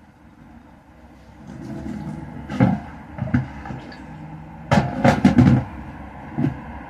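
A series of sharp knocks and bumps over a low rumble, with several in quick succession a little past halfway.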